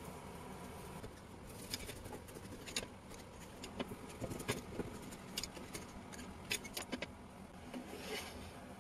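A knife sawing through crusty Ticino bread, the crust crackling in a string of irregular small crunches and scrapes.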